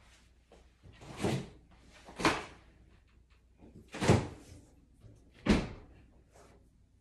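A door banging four times off-screen: heavy thuds one to two seconds apart.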